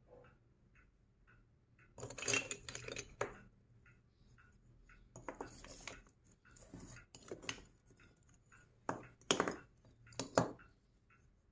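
Hard plastic pieces of a magnetic ball-and-stick building set clattering and clicking as they are handled, in several short bursts. A faint, regular ticking sits underneath at the start.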